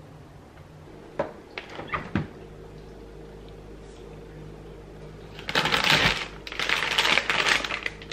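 A few clicks and knocks, then a couple of seconds of loud rustling and crinkling of plastic food packaging being handled in an open freezer drawer, over a faint steady hum.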